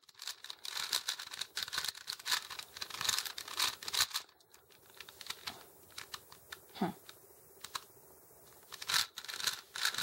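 Plastic layers of a 4x4 Rubik's cube being turned quickly by hand through a U-perm algorithm: a rapid run of sharp clicks and clacks, thinning out to a few clicks in the middle before another quick flurry near the end.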